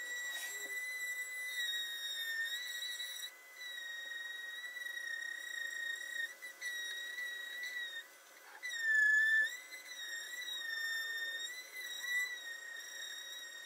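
A steady high-pitched squeal from a woodworking tool, its pitch wavering slightly. It dips in pitch and is loudest about nine seconds in.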